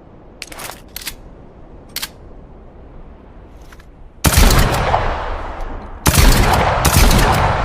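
A few sharp metallic clicks. Then a short-barreled shotgun fires one loud shot about four seconds in, followed by two more about two seconds later in quick succession. Each shot has a long echoing tail.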